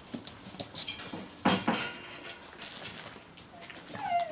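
Flatcoated retriever puppies pattering about on a wooden floor with light scattered clicks, then a short puppy whine near the end that falls in pitch.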